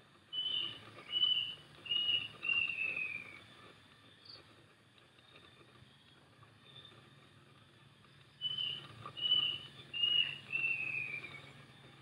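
A bird sings the same short phrase twice, about eight seconds apart. Each phrase is three short clear notes followed by a longer falling note.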